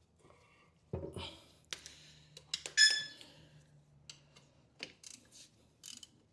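Metal hand tools clinking and knocking against an engine, in scattered separate clicks, with one loud ringing metallic clink near the middle.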